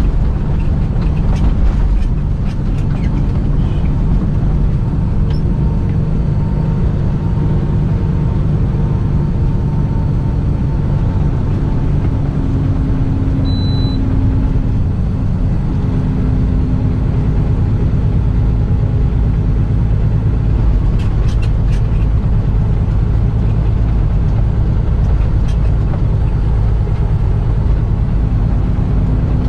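Semi-truck's diesel engine and tyres droning steadily while driving on the road.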